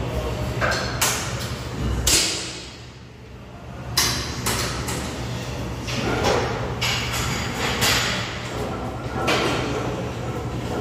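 Plate-loaded leg press in use: the weighted sled sliding on its rails with repeated scraping, clunking strokes every second or two, over a steady low hum.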